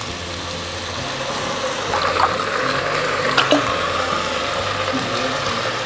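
Water poured from steel tumblers into a pressure cooker of rice and fried masala, a steady splashing pour that grows a little louder, with a couple of light metal clinks.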